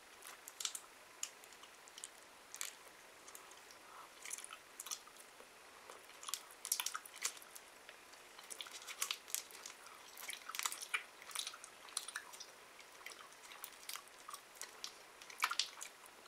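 Faint, irregular crinkles and clicks of a Laffy Taffy wrapper being picked open by hand, with quiet chewing of sticky taffy.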